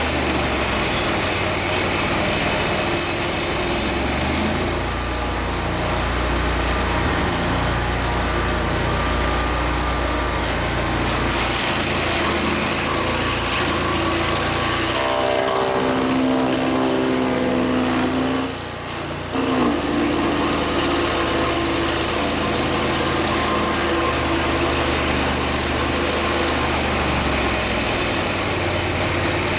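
An engine running steadily throughout. Between about 15 and 19 seconds in its note changes, with the low rumble falling away and a brief drop in level before it settles back.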